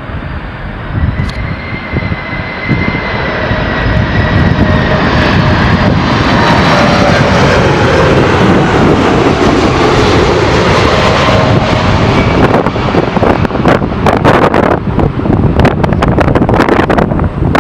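Jet airliner passing close by, its engine roar building over the first few seconds, with whining tones that slowly fall in pitch. Gusty crackling, like wind on the microphone, comes in near the end.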